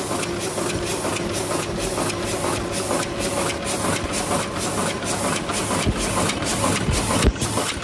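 Ruida RD-12/22-100A high-speed paper cup forming machine running, its open-cam drive cycling with a fast, even rhythm of about two strokes a second over a steady hum and hiss. A few heavier knocks come near the end.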